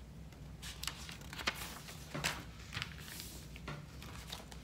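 Paperback book being handled and a page turned: a scatter of short, light paper rustles and taps.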